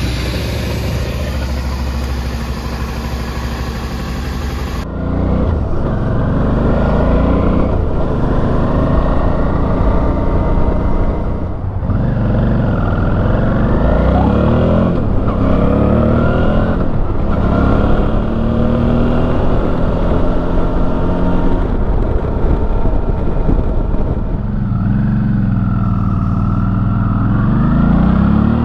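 2007 Suzuki V-Strom 650's 645 cc V-twin engine on the road, heard from inside the rider's helmet over wind and road noise. Its note is steady for about five seconds, then rises and drops repeatedly as it accelerates and shifts gears. Near the end it dips as the bike slows, then climbs again.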